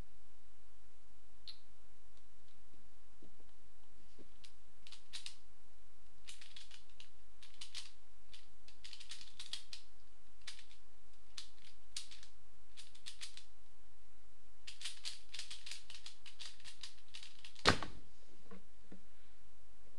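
Plastic pyraminx puzzle being turned fast in a speedsolve: bursts of rapid clicking and clacking from the twisting layers. About three seconds before the end comes a single loud, sharp knock as the puzzle is put down and the hands hit the timer to stop it.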